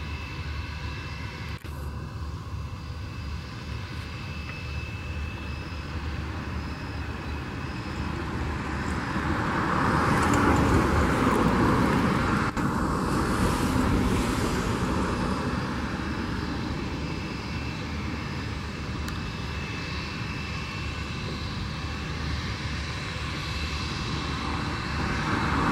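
Airbus A320's jet engines running at low taxi power as the airliner taxis past: a steady rumble with a thin high fan whine, swelling to its loudest about ten to fourteen seconds in, then easing off.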